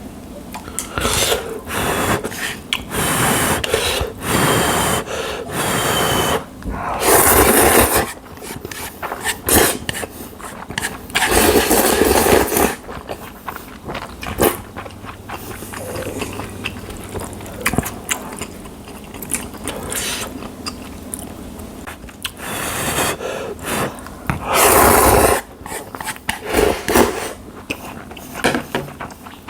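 A person slurping instant jjamppong ramyeon noodles in long noisy sucks, several times, with chewing and mouth sounds between the slurps.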